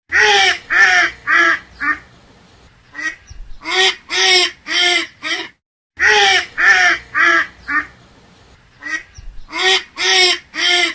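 Duck quacking in runs of four to six quacks, each run fading toward its end, with short pauses between runs.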